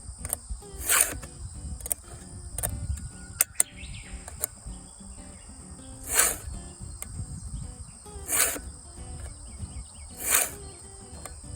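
Chainsaw file rasping across the cutter teeth of a Husqvarna Rancher 450 chain as it is sharpened by hand: four separate strokes spaced a couple of seconds apart, with light clicks between them, over a steady insect drone.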